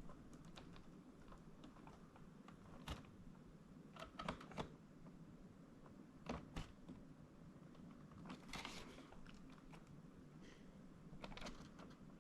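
An advent calendar box and its coffee capsules being handled close up, making scattered light taps and clicks with short pauses between them. There is a brief rustle about eight and a half seconds in.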